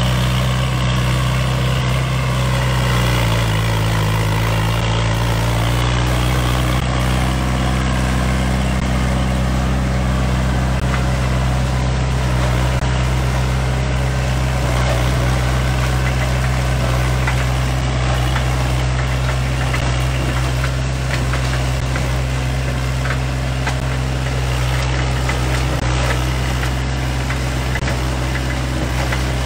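Kubota compact tractor's diesel engine running steadily; its note dips briefly about three seconds in, then holds even.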